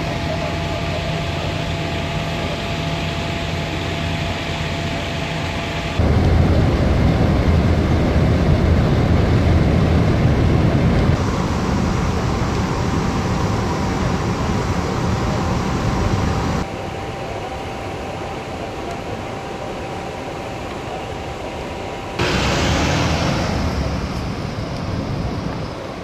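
Steady rushing of burning natural gas jetting from a ruptured pipe, mixed with fire-truck motors running. The sound changes abruptly in loudness several times, about every five or six seconds.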